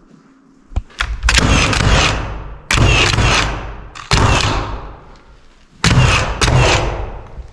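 Pneumatic framing nailer firing nails into a stud wall: about seven sharp shots, one to one and a half seconds apart, each followed by a ringing tail.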